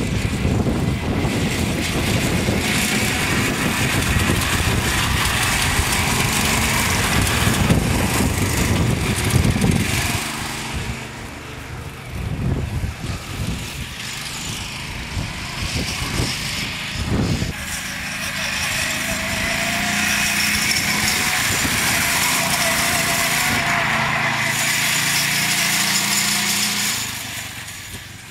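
Small engine of a Rokon Trail-Breaker two-wheel-drive motorbike running as it rides through the field. It is loud and rough for the first ten seconds, then uneven, and in the second half it settles into a steady tone whose pitch rises and falls as the engine revs, fading near the end.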